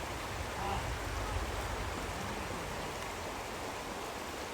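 Mountain trout stream rushing over rocks, a steady wash of running water.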